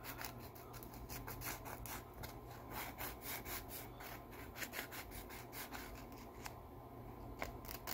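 A tiny metal push-to-talk switch contact rubbed back and forth by hand on sandpaper, making faint, quick scratchy strokes, several a second. The sanding is scouring green corrosion off the contact.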